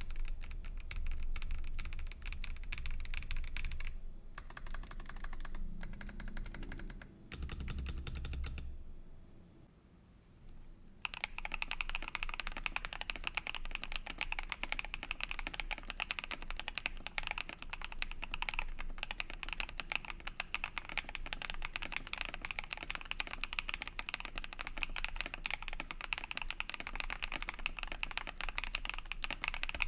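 Rapid typing on a mechanical keyboard fitted with PBT keycaps, a continuous stream of clacking keystrokes. It breaks off about nine seconds in. About two seconds later a new sound test starts, with denser, brighter clacking.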